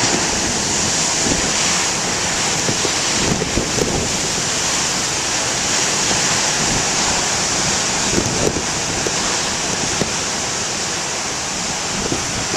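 Big ocean waves breaking and washing in a steady, dense roar of surf, with wind gusting over a plastic-wrapped microphone as an uneven low rumble underneath.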